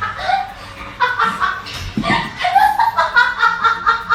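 Rapid, repeated laughter in quick bursts of several a second.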